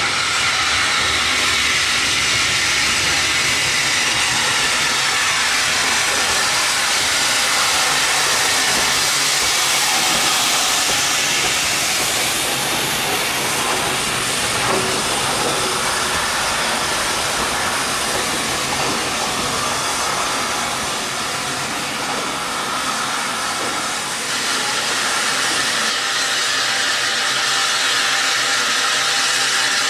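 Steam locomotive hissing loudly and steadily as steam escapes, dipping briefly a little over two-thirds of the way through.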